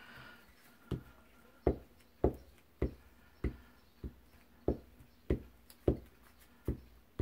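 Glue stick being rubbed over the back of a paper scrap on a tabletop, each stroke knocking: a run of short, sharp taps about every half second.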